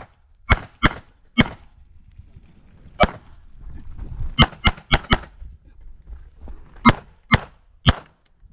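CZ 75 SP-01 pistol firing rapidly, about eleven shots, mostly in quick pairs about a third of a second apart with short gaps between groups.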